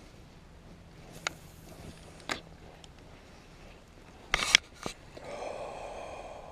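Fishing tackle handled on a kayak: a few sharp clicks and knocks, a loud clatter of clicks about four and a half seconds in, then a steady whir for over a second near the end.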